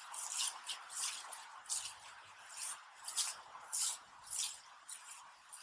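Footsteps swishing through grass and fallen leaves at an even walking pace, about one and a half steps a second, over a faint steady hiss.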